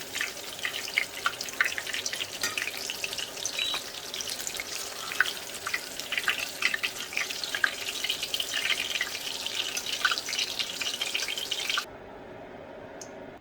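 Chicken keema pakoras deep-frying in hot oil: a dense sizzle with many irregular crackles and pops. It cuts off abruptly about a second before the end, leaving a faint hiss and a single click.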